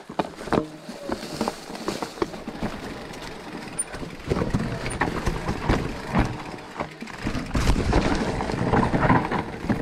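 Electric mountain bike descending a rocky, leaf-covered trail: tyres crunching over dirt and stones with frequent knocks and rattles from the bike, louder in the last couple of seconds.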